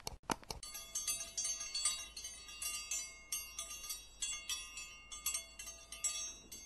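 A couple of sharp clicks, then a bright tinkling bell-chime sound effect. Many quick strikes overlap and ring on with high overtones, like small bells or wind chimes, sounding as the notification bell of a subscribe-button animation.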